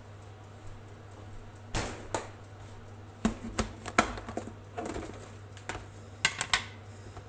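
Scattered knocks and clicks of kitchen objects being handled and set down, with a quick run of three or four clicks near the end, over a steady low hum.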